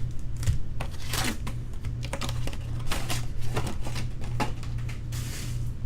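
Irregular clicks and crinkles of sealed trading-card packs being handled and opened by hand, over a steady low electrical hum.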